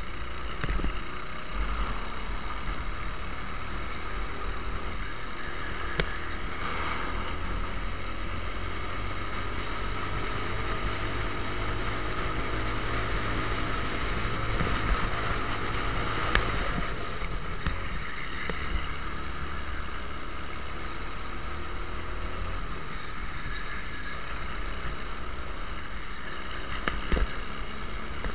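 Racing kart engine at full race pace, heard from on board, its revs rising and falling through corners and straights, with a strong low rumble and a few sharp knocks.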